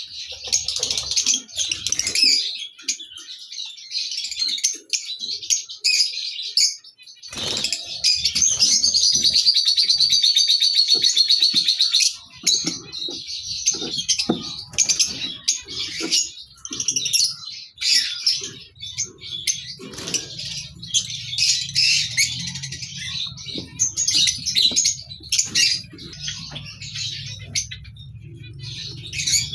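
A group of lovebirds chattering and chirping with shrill, rapid calls, swelling into a loud unbroken chatter for a few seconds about a third of the way in. A low steady hum joins in the second half.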